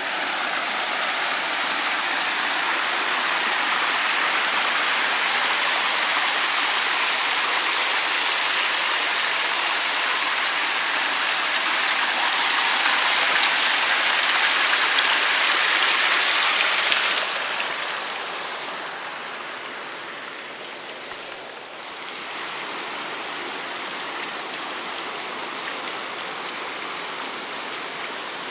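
Water spilling over the rock ledge below a concrete dam spillway in small falls, a steady loud rush. About seventeen seconds in it drops to a softer, steadier rushing.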